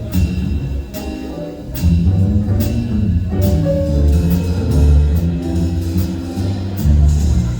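Live band playing an instrumental passage: drum kit keeping a steady beat under bass and held melodic notes, with no singing.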